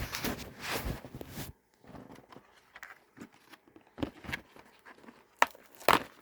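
Kinder Joy egg's plastic wrapper crinkling as it is handled, then softer handling noises and two sharp clicks near the end.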